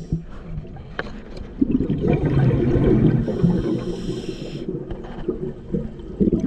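Scuba diver breathing through a regulator underwater: a bubbling rumble of exhaled air, with a hissing breath in about halfway through.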